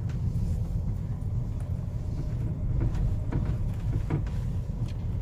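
Car running while driving slowly, heard from inside the cabin as a steady low rumble of engine and road noise, with a few faint clicks.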